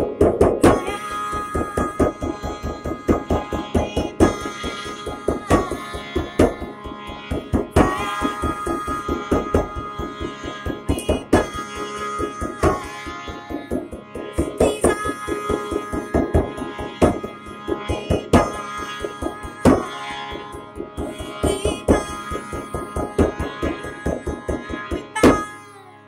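Hand-struck frame drum beaten in a fast, steady rhythm over a sustained harmonium drone. The drumming stops just before the end, leaving the harmonium sounding alone.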